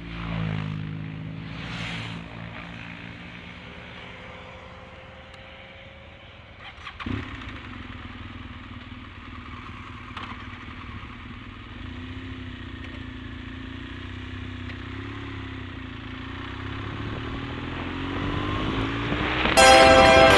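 BMW GS adventure motorcycle engine running, revved briefly, then pulling away and accelerating with its pitch climbing steadily through the second half, with a single knock about a third of the way in. Music comes in near the end.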